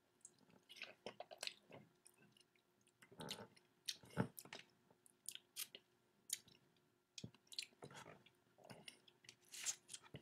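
Faint wet chewing and mouth smacks of a person eating a lemon wedge, as scattered short clicks.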